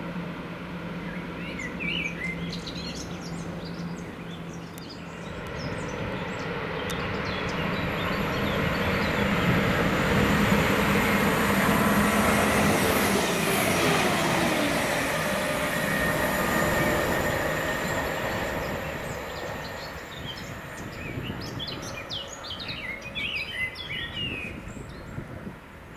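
Diesel multiple unit train passing through the station: the engine and wheel noise grow to a peak about ten to thirteen seconds in, drop in pitch as the train goes by, then fade away. Birds chirp near the start and again in the last few seconds.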